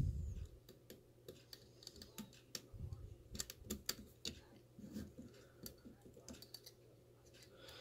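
Faint, irregular small clicks and taps of a lock pick and tension tool working a Medeco payphone lock, with a soft low knock about three seconds in as the lock shifts, loose in its vise.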